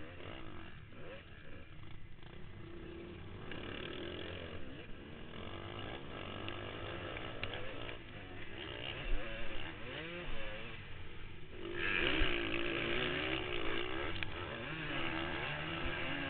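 Motocross dirt bike engine heard from the rider's helmet camera, revving up and down repeatedly as it is ridden hard around the track. It gets louder about twelve seconds in.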